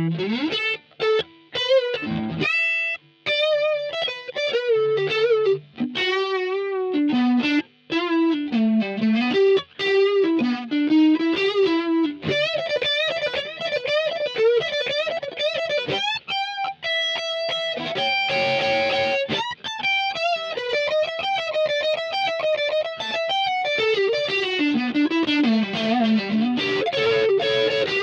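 Swing P-2S electric guitar played alone with an overdrive tone from a Line 6 POD HD500: a single-note lead line of fast runs, string bends and wide vibrato, broken by a few short pauses in the first eight seconds.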